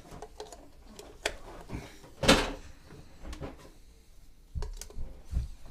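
A few light clicks and knocks of parts being handled while an oil-filled radiator is put together, with one louder knock about two seconds in and a couple of dull thuds near the end.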